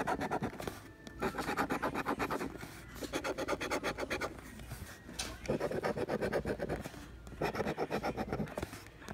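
A scratch-off lottery ticket being scraped with a small metal tool: rapid back-and-forth scratching of the coating in several bursts of a second or two each, with short pauses between.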